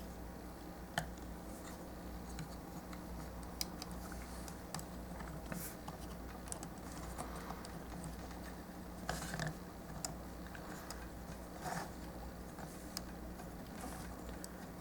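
Light plastic clicks and brief scrapes of plastic model kit parts being handled and pressed together, with a slightly louder cluster of clicks and scrapes a little past the middle. A steady low hum runs underneath.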